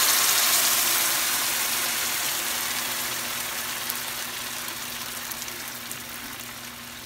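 Blended tomato sauce poured from a blender jar into a hot, oiled frying pan, sizzling loudly as it hits the pan. The sizzle fades steadily as the pan fills and cools.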